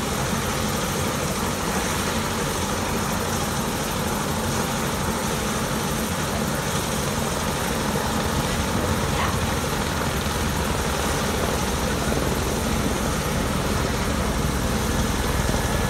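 Tour helicopter running on the ground, its turbine engine and turning rotor making a steady noise, with a low rotor beat that grows stronger near the end.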